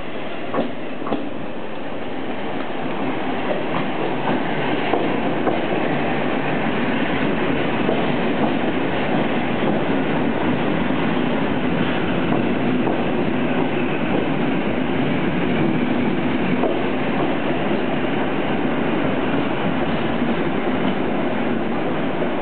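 PKP EN57 electric multiple unit rolling past along the platform, its wheels clicking over rail joints, growing louder over the first few seconds as it draws near and then running steadily. A couple of sharp clicks come about half a second and a second in.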